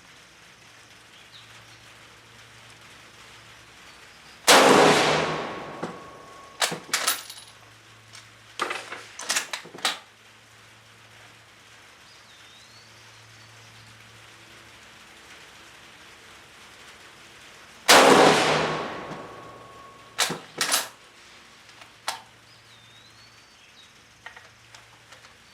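Spanish FR7 bolt-action rifle fired twice, about thirteen seconds apart, each shot with a trailing echo, followed by several sharp metallic clacks as the bolt is worked to eject the case and chamber the next round.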